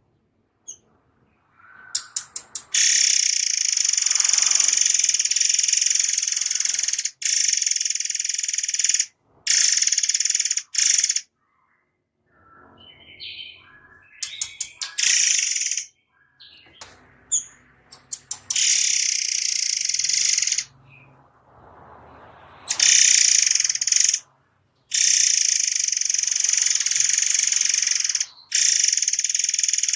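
A murai air mancur songbird singing dense, high-pitched rapid-fire trills in long bursts of one to five seconds that start and stop abruptly, with a few short, softer chirps between bursts partway through.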